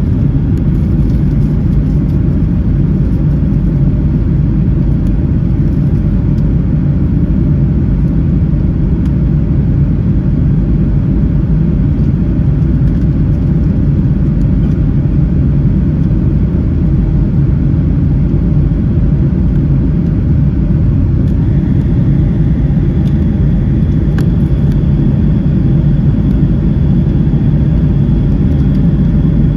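Jet airliner cabin noise: a steady low rumble of engines and airflow heard from a passenger seat. A faint high tone joins it about two-thirds of the way through.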